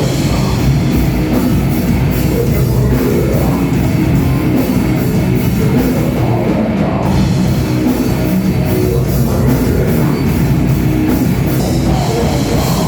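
Death metal band playing at full volume: heavily distorted guitar over fast, dense drum-kit playing.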